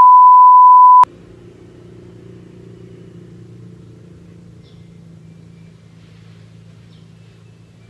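Steady 1 kHz test tone, the beep that goes with TV colour bars, cutting off sharply about a second in. It is followed by a faint, steady low hum.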